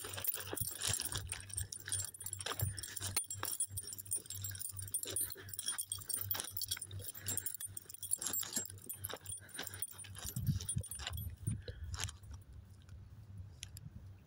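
Footsteps crunching and scuffing through dry, soft beach sand, a dense irregular run of crunches that thins out about twelve seconds in.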